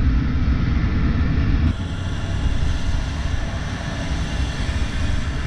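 Onboard sound of a Suzuki Bandit 600 motorcycle under way: wind rushing over the microphone with the engine running underneath. The sound changes abruptly a little under two seconds in, at a cut.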